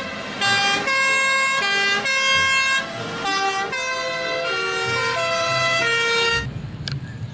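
Electronic tune from a toy fire truck's sound module: a string of clear, high notes changing every fraction of a second, stopping about six and a half seconds in.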